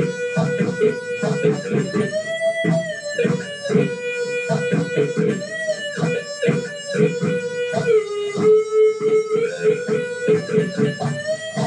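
Electric guitar playing: long held notes, bent up and down several times, over quick, steadily repeated picked low notes.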